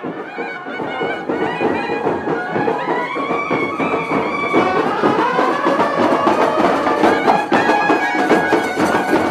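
Traditional Indian music: a reed wind instrument playing a winding, sustained melody over dense, rapid drumming.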